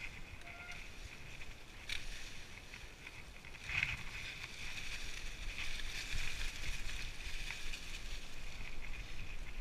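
Mountain bike rolling downhill on a dirt trail covered in dry leaves: the tyres rustle through the leaves, with a few knocks from the bike over bumps and a slightly louder run from about four seconds in.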